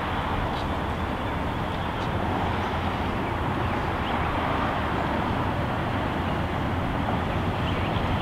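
Steady rumble of distant vehicles, growing slightly louder toward the end.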